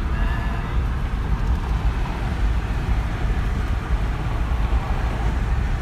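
Steady road and engine rumble inside a moving car's cabin on a highway, heavy in the low end.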